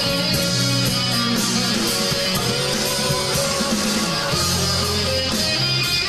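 Live band playing an instrumental passage of a soft-rock ballad: electric guitar over bass, drums and keyboards, with no singing.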